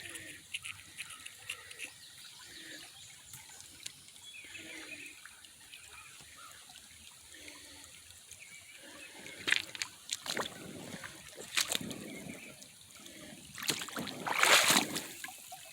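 Shallow creek water trickling, with a few sharp knocks around the middle and a louder stretch of splashing near the end, like feet wading through the shallows.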